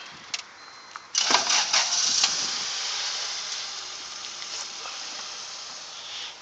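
A car engine cranks and catches about a second in, then keeps running, its sound slowly settling and growing quieter.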